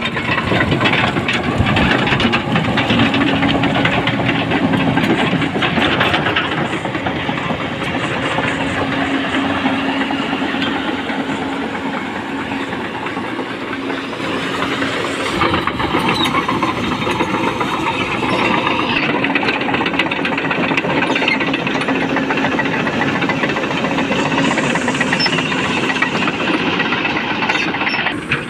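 JCB 225 tracked excavator moving, its diesel engine running with a steady drone under dense clanking of the steel track links as they churn through shallow muddy water.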